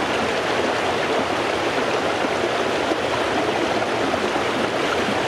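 Fast-flowing floodwater rushing and churning: a steady, even wash of water noise.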